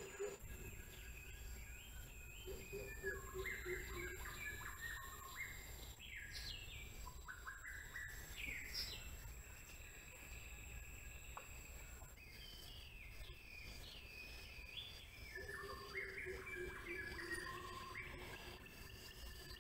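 Faint woodland ambience: several birds calling and chirping in bursts of short stepped and gliding notes, over a thin steady high-pitched tone and a low rumble.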